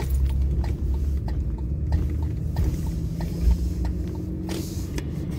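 Car driving, heard from inside the cabin: steady low engine and road rumble, with light ticks at uneven spacing.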